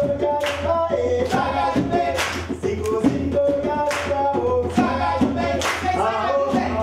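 Group singing by a woman's and men's voices, carrying a held, shifting melody over a steady beat of sharp strikes, about one a second.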